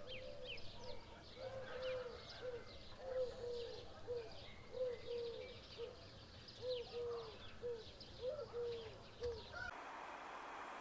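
Dove cooing in short, repeated low arching notes, with small birds chirping higher above it. Near the end it cuts off suddenly to a steady hiss.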